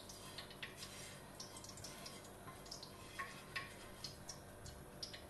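Silicone spatula scraping and tapping inside a non-stick frying pan as leftover caramel is scraped out: faint scrapes with a dozen or so light, irregular clicks.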